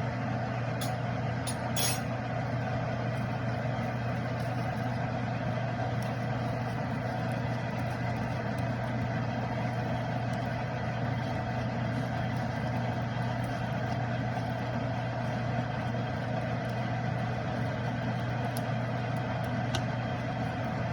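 Steady mechanical hum with a low drone and an even rushing noise, with a few faint clicks about a second and two seconds in.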